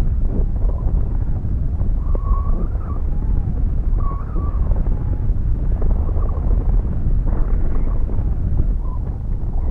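Wind buffeting the microphone of a high-altitude balloon payload falling under its parachute just after the balloon burst: a loud, steady low rumble with a faint wavering whistle at times.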